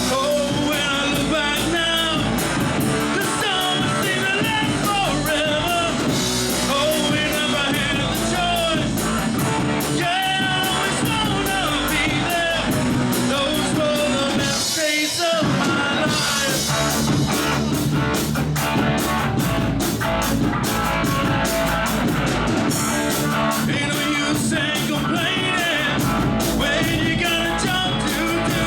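Live rock band playing a song with a lead singer.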